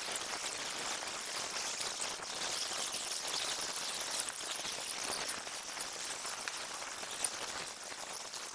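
Large driftwood bonfire burning: a dense, steady crackle and hiss of burning wood.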